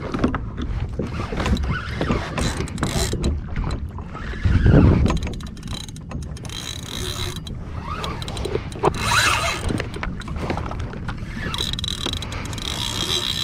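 Water sloshing and slapping against a plastic fishing kayak's hull, with scattered knocks from handling the rod and gear. A louder low thump comes about five seconds in.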